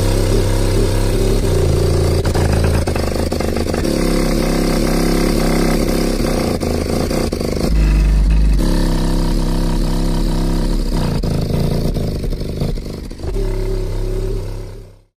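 Digital Designs 9518 subwoofer driven hard by an Audiopipe APCL 1800.1 amplifier, playing loud, distorted deep bass notes that change every second or so, with rattling throughout; it cuts off suddenly near the end.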